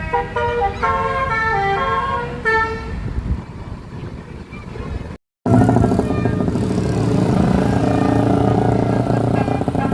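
Bus musical air horn ('telolet') playing a quick tune of stepped notes, which ends about three seconds in. After a short cut, a loud steady sound with a low hum follows.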